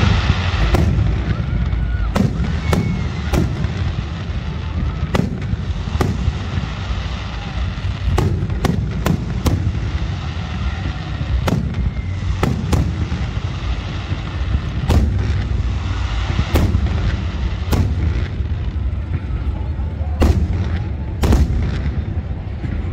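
Fireworks display: aerial shells bursting with sharp bangs at irregular intervals, several in quick succession at times, over a steady low rumble.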